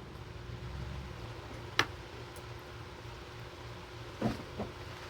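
Ceiling fan running with a steady low hum, broken by a sharp click about two seconds in and two duller knocks near the end.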